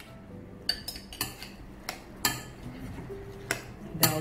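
Metal spoon clinking and scraping against glass bowls, about six sharp irregular clinks, as soaked sago pearls are scooped out and stirred into a mashed-banana mixture.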